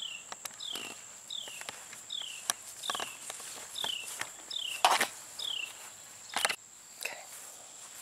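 Knocks and clatter of the tire tool and wheel being handled, the loudest about five and six and a half seconds in. Behind them runs a short falling chirp repeated about twice a second, which stops partway through, and a steady high-pitched whine.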